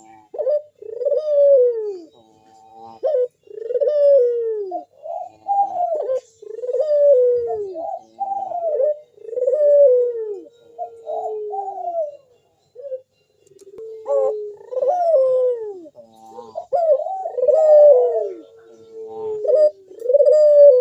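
Local puter dove cooing persistently in its full, deep song, known as gacor manggung: a steady run of falling, arched coos with hardly a gap, overlapping in places.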